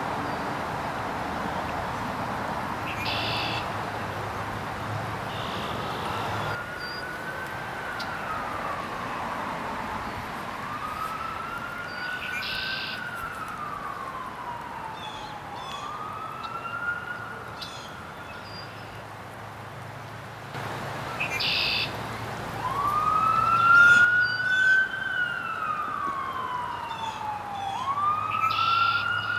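A siren wailing, starting about six seconds in: long sweeps in pitch, each rising fairly quickly and falling slowly, one every four to five seconds, with a pause in the middle and the loudest sweep about three quarters of the way through.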